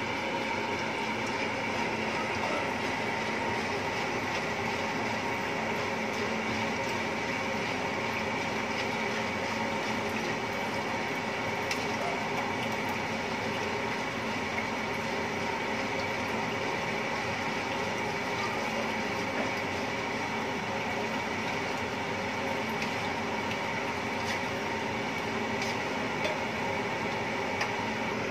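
A steady hum and hiss with a few faint clicks of a spatula against a metal wok while milk sauce is stirred.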